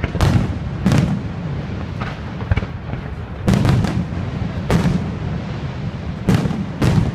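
Aerial firework shells bursting in an irregular series of sharp bangs, with a steady low rumble between them. There are two bangs in the first second, a quick run of three about three and a half seconds in, and several more near the end.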